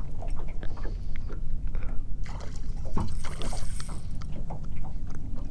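Small fishing boat on the water: a steady low hum with scattered knocks and splashing noises.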